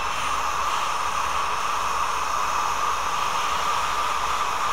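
Hot air rework station blowing steadily: an even rush of air with a fan whine running through it.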